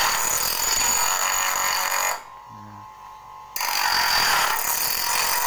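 Small Tiger bench grinder's wheel grinding the teeth of a sawmill band saw blade to sharpen it: a loud grinding hiss with high steady whines. The grinding breaks off about two seconds in, leaving the grinder spinning freely, and starts again about a second and a half later.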